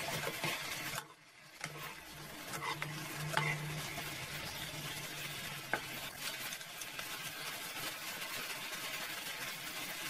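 Sliced bamboo shoots sizzling in a stainless steel frying pan as they are stirred with chopsticks, with a few light clicks of the utensils against the pan; the seasoned liquid is cooking down into the shoots. The sizzle drops out briefly about a second in.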